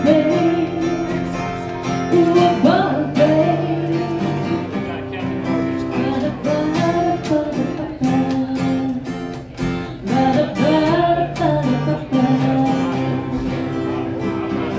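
Acoustic guitar strummed in a country song, with a woman's voice singing phrases over it.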